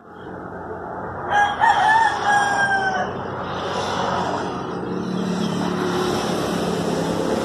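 A rooster crows once, a call of nearly two seconds over steady outdoor background noise. Later a motorcycle tricycle's engine passes on the road, a low hum that swells and fades.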